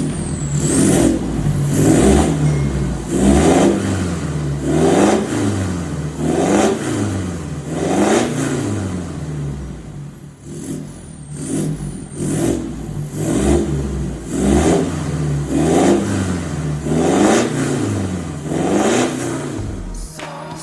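Mitsubishi Pajero's engine revved again and again through a newly fitted stainless steel full-system aftermarket exhaust. The revs rise and fall about every one and a half seconds, with a short lull about ten seconds in.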